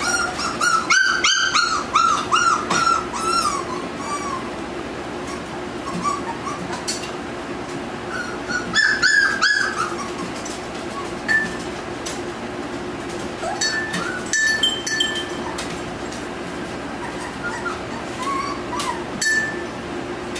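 Nova Scotia Duck Tolling Retriever puppies yipping and whining, a rapid run of high calls in the first few seconds and another around nine seconds in, with sharp clinks of the hanging tin cans and chains as they play. A steady low hum runs underneath.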